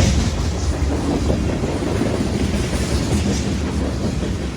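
Freight train rolling past at close range, a steady loud rumble of wheels on rails.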